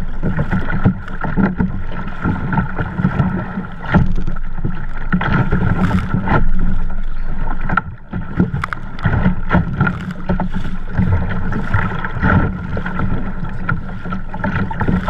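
Choppy sea water slapping and splashing against a kayak's hull as it is paddled through surf, with wind buffeting the microphone and irregular bursts of spray. A faint steady high tone runs underneath.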